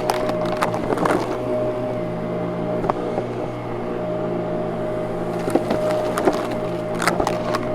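Vacuum cleaner running steadily, a constant hum with a whine over it, broken by scattered sharp clicks and rattles, bunched near the start and again near the end.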